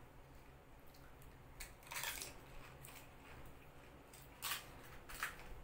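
Crisp pani puri shells crunching and cracking. There is a crunch about two seconds in, then two sharper cracks near the end as the next hollow shell is broken open with the fingers.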